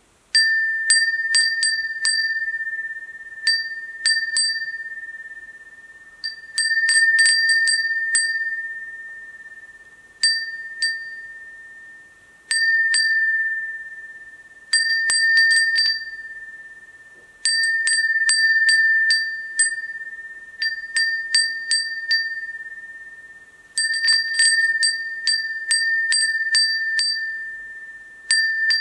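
Japanese crystal-glass wind bell (giyaman furin) ringing as its clapper strikes the glass in irregular clusters of clinks every few seconds. Each cluster leaves one high, clear ringing pitch that fades away over a couple of seconds.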